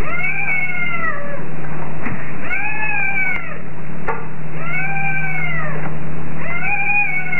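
A young kitten meowing: four drawn-out meows, each rising and then falling in pitch, about one every two seconds. A steady low hum runs underneath.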